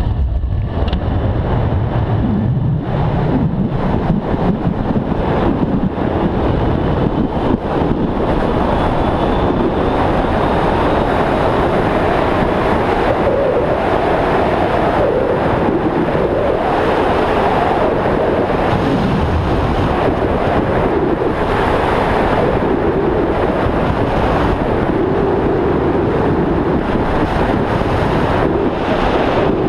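Loud, steady rush of wind buffeting a body-worn camera's microphone as a rider speeds down a long zip wire. A wavering hum runs under the wind.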